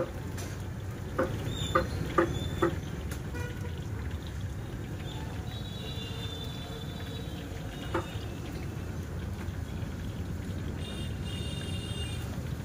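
Gas burner under a wok of bubbling frying oil, giving a steady low roar, with four sharp knocks in the first three seconds and another near the middle. Short high-pitched tones sound twice in the second half.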